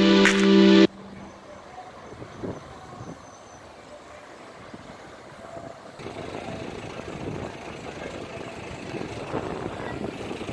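Background music that cuts off suddenly about a second in, then quiet outdoor street ambience with a vehicle engine running.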